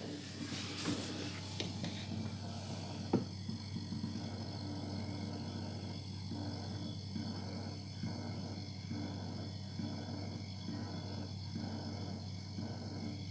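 New Samsung refrigerator running with a steady low hum, over which a rhythmic crackling chirp repeats about twice a second: the strange operating noise the new fridge makes. A single sharp click comes about three seconds in.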